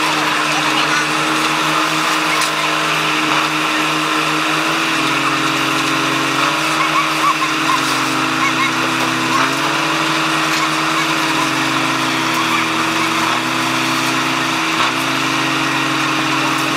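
Diesel engine of a heavy recovery truck running steadily under load while it pulls an overturned car-carrier trailer upright. One engine note holds steady while another slowly dips and rises in pitch.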